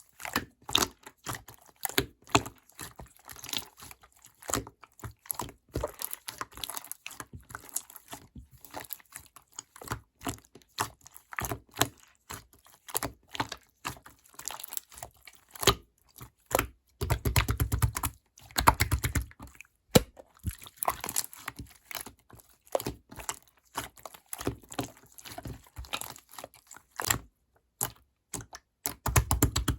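Clear slime being squeezed and pressed by hand, giving rapid, irregular clicks and pops of trapped air bubbles. Heavier low thumps come a little past halfway and again near the end.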